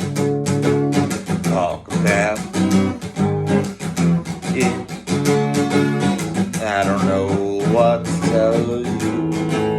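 Guitar music: acoustic guitar strumming chords in a steady rhythm, with a higher melody line that bends in pitch above it.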